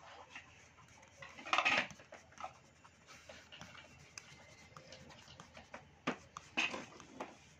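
Handling of a paper drawing-book page: fingers brushing and rubbing over the sheet, with a short rustle about one and a half seconds in and a few light taps and brushes near the end.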